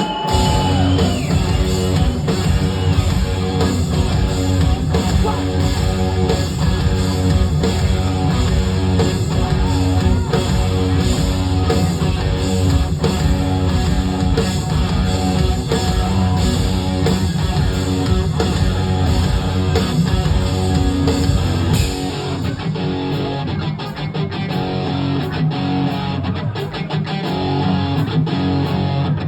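Live rock band playing an instrumental stretch loud: distorted electric guitar, bass and drum kit. About 22 seconds in the heavy low end drops away, leaving a thinner guitar part punctuated by sharp rhythmic hits.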